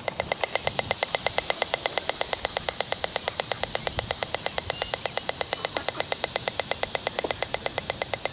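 Audio output of a handheld RF meter: a steady, rapid train of clicks, about ten a second, as it renders the radio-frequency signal it picks up as sound. The even pulse rate is typical of a Wi-Fi router's beacon signal.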